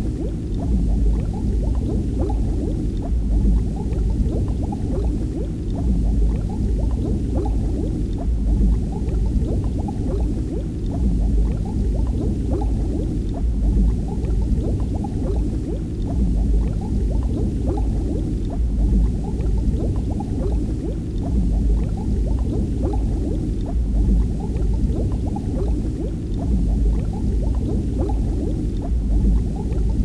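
Water bubbling and gurgling steadily: a dense, low, unbroken patter of small bubbles.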